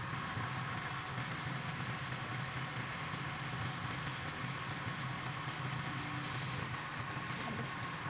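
Wood lathe running steadily, a constant motor hum under an even whirring noise.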